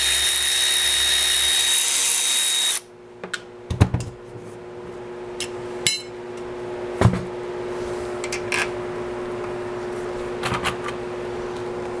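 An aerosol spray can hisses in one steady blast for nearly three seconds and cuts off suddenly. Scattered clicks and knocks of tools and parts being handled follow, over a steady low hum.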